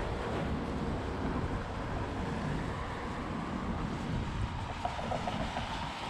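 Steady low rumble with wind buffeting the microphone, and a few faint short tones near the end.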